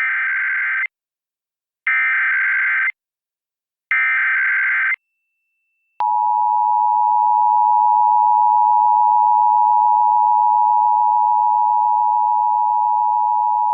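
Emergency Alert System test broadcast: three one-second bursts of SAME header data, a harsh buzzy warble, about two seconds apart. About six seconds in, the EAS two-tone attention signal starts, a loud steady dual tone of 853 and 960 Hz.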